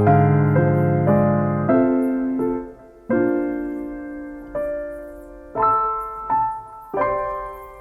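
Background piano music: slow, gentle chords and single notes, each struck and left to fade.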